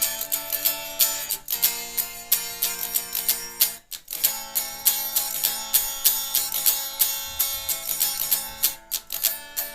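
Acoustic guitar strumming chords in a quick, even rhythm, changing chord about a second and a half in and again around four seconds in, with no singing.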